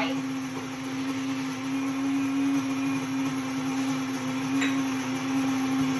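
WonderMill electric grain mill running with a steady hum, grinding hard white wheat berries into flour.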